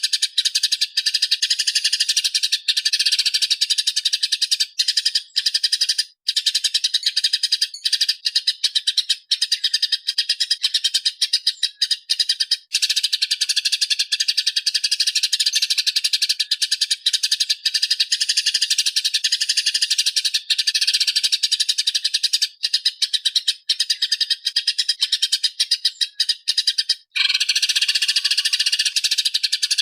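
Small songbird chattering in a rapid, high-pitched trill that runs almost without a break, as in a masteran recording used to tutor cage songbirds. The song stops briefly about 27 seconds in and picks up again in a slightly different pattern.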